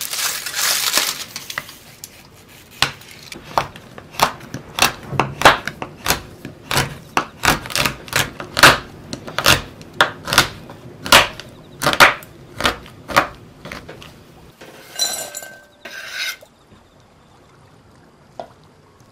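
Crushing of Rumando cookie crumbs in a glass bowl at first, then a spatula clinking against a glass bowl about twice a second as milk chocolate is stirred to melt over a hot-water bath. A short noisy burst comes near the end.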